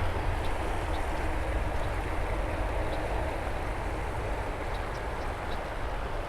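Creek water running, a steady rushing with a low rumble underneath.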